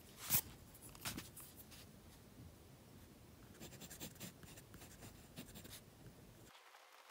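Mechanical pencil scratching on sketchbook paper in short, faint strokes. There is a sharp click about a third of a second in, and a denser run of strokes around the middle.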